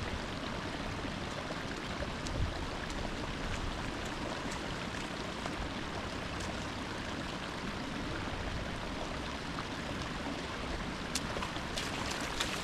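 Steady rushing of flowing water, with a few light clicks near the end.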